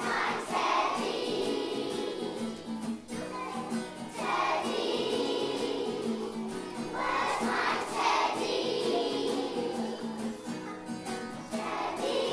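A group of young school children singing a song together in unison, in phrases with short breaks between them, over a musical accompaniment.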